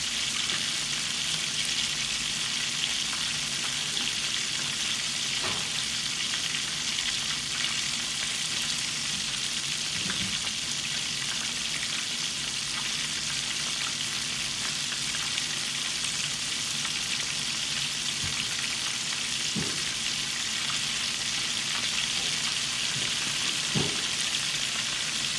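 Flour-and-egg-coated chicken pieces frying in oil in a deep stainless-steel pan: a steady sizzle with a few small pops.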